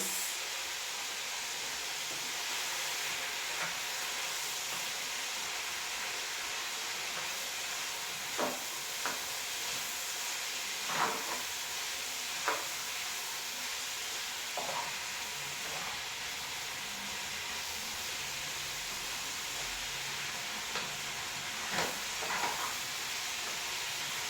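Beef goulash sizzling steadily in a pot on the stove, with several short knocks of a utensil against the pot.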